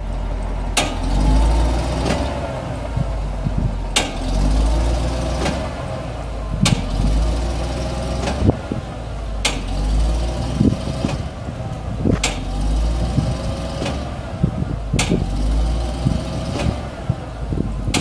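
Ford F700's 6.1-litre gas V8 running steadily, driving the PTO hydraulic pump that works the Altec boom as it lifts the basket. Sharp clicks sound at even intervals, about every three seconds.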